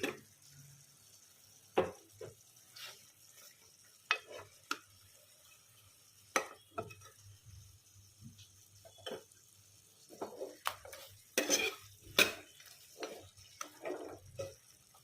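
Metal spoon scooping gravy out of a cooking pot: irregular clinks, knocks and scrapes against the pot, busiest near the end.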